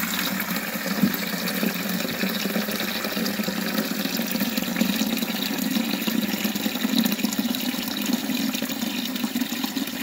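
Water running steadily from an outdoor garden tap into a plastic pigeon drinker, splashing as the drinker fills.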